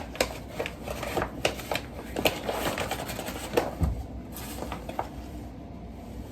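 Light irregular knocks and scrapes of a measuring cup scooping flour from its container, with one low thump about four seconds in.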